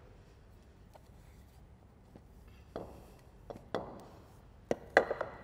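Wooden yoga blocks being turned and set against each other: a few short knocks in the second half, the loudest about five seconds in.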